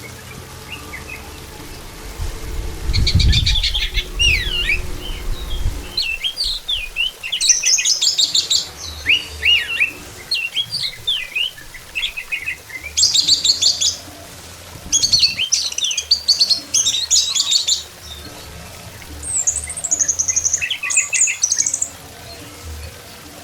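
Orange-headed thrush singing in repeated bursts of varied whistles, glides and rapid trills, with short pauses between phrases. A low rumble sounds about three seconds in.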